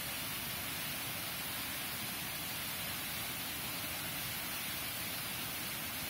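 Monsoon-fed waterfall pouring over a series of rock steps and splashing into the pool below: a steady, unbroken rush of water, mostly bright hiss.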